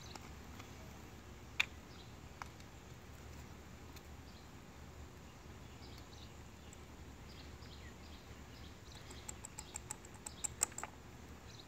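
Small clicks and ticks of a metal spatula against glass test tubes as crystals are scooped and tapped in: one sharp click about a second and a half in, and a quick run of light ticks near the end.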